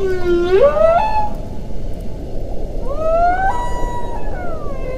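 Whale song: long calls with several overtones that swoop down in pitch and then climb. One falls and rises over the first second, a second climbs and holds near the middle, and a third starts near the end, over a steady low underwater hiss.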